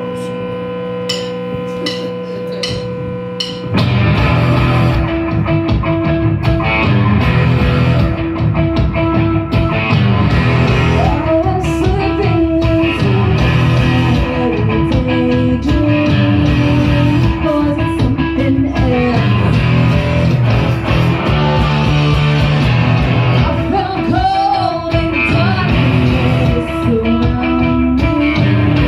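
Live rock band playing a song intro: held guitar tones over a few evenly spaced clicks, then the full band with drum kit and electric guitar comes in suddenly about four seconds in.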